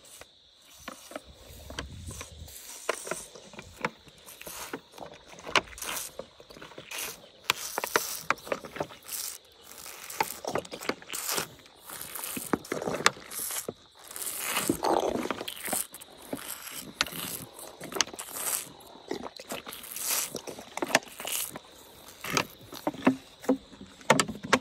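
Young African elephant drinking milk from a plastic bottle held up in her trunk: the bottle crinkles and crackles as it is squeezed, with gulping and sucking sounds, in an irregular run of clicks and short bursts.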